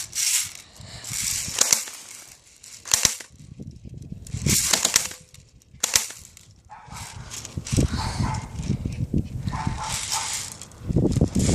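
Airsoft guns firing a scattered series of sharp single shots, a second or more apart, with low rumbling noise in the second half.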